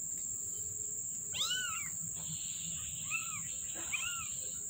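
Young kittens mewing: three short, high-pitched mews, each rising then falling, about a second and a half, three and four seconds in, the first the longest. A steady high chirring of crickets runs beneath.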